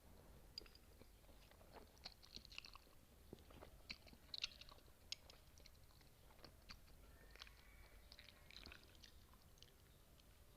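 Close-miked chewing of spicy noodles and kimchi: a scattered run of small wet clicks and crisp crunches, several a second, with no words.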